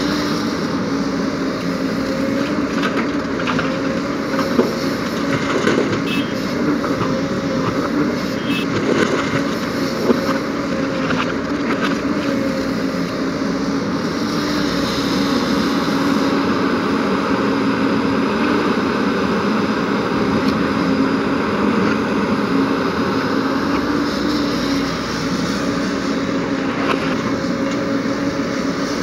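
JCB tracked excavator's diesel engine running steadily under load through a dig-swing-dump cycle, with a few sharp knocks in the first ten seconds or so.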